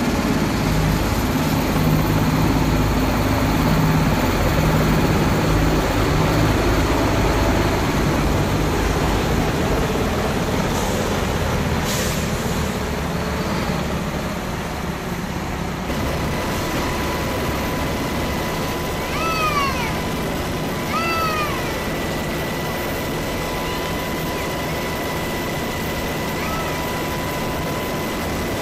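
A low, steady rumble like vehicle noise for the first half, then a cat meowing, with two clear meows about twenty seconds in and a fainter one later.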